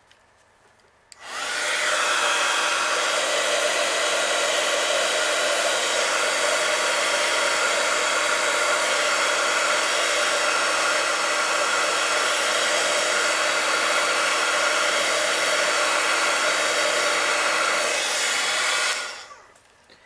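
Handheld craft heat gun blowing with a steady whir and a faint hum. It switches on about a second in and switches off near the end, winding down.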